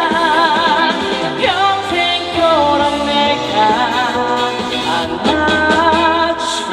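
Live trot song with band backing: a held, wavering sung note at the start, then a melodic instrumental passage until the next verse.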